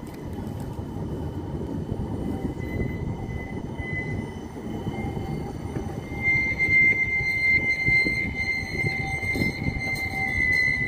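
CAF Urbos tram rolling past with a steady rumble of wheels on rail. About six seconds in, a steady high squeal from the wheels sets in and grows louder.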